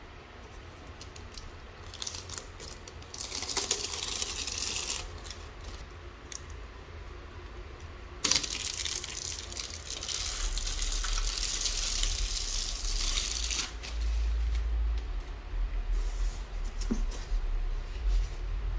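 Packaging being handled during an unboxing: two long spells of rustling, tearing noise, plastic wrap or tape, with scattered clicks and knocks between them.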